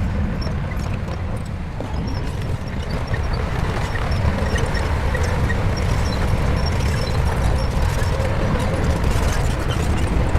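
Shantui bulldozer's diesel engine running steadily with a deep, continuous rumble, growing a little louder a few seconds in.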